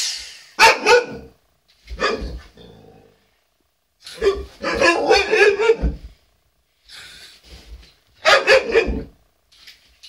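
Alaskan malamute barking and vocalizing in four bouts, the longest lasting about two seconds near the middle, as a playful protest at a vacuum cleaner.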